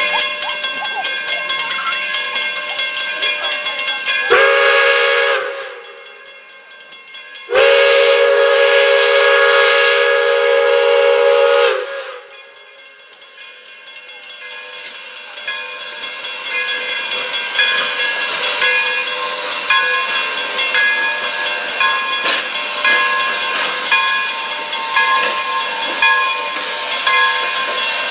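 Pere Marquette 1225 steam locomotive's whistle blowing one short blast about four seconds in, then a long blast of about four seconds, over the steady ringing of a grade-crossing bell. From about fourteen seconds the locomotive passes tender first, with hissing steam and the rolling of its train of cars.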